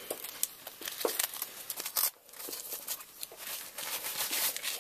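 Rustling, crinkling and scraping of hard-knuckle tactical gloves being pulled on and worked over the hands, in short irregular bursts with a brief pause about two seconds in.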